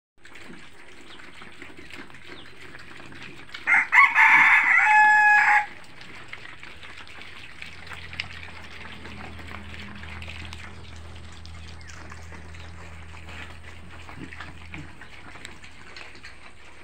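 A rooster crows once, about four seconds in, lasting nearly two seconds. Around it, faint crunching and shuffling of piglets eating grain off a concrete floor.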